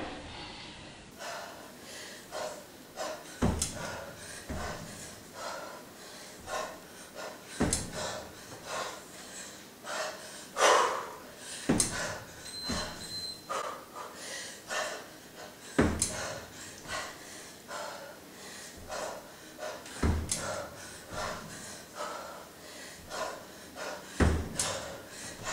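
Kettlebell one-arm long cycle (clean and jerk) in progress. A low thud comes about every four seconds as each rep goes through, with short, sharp breaths between the thuds.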